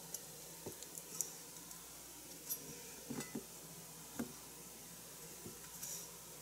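Kitchen knife cutting a small block of food on a plastic cutting board: faint, irregular soft knocks as the blade meets the board, about eight over the stretch.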